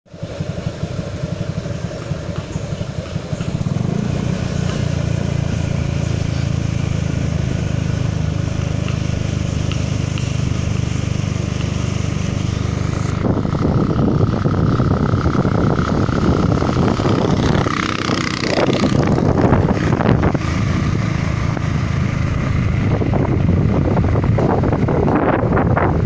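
A vehicle's engine running steadily while it travels, with wind rushing over the microphone that grows rougher and stronger about halfway through.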